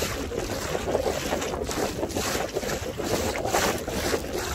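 Wind buffeting the microphone over repeated splashes of small waves against the bow of an inflatable boat moving slowly through light chop.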